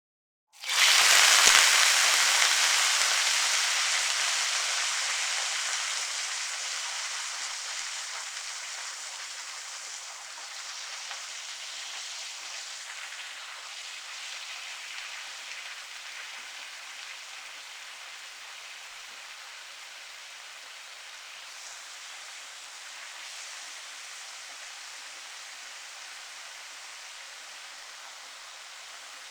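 Food sizzling in a hot frying pan. The sizzle starts suddenly and loud about half a second in, fades over the next ten seconds or so, then settles into a steady, quieter sizzle.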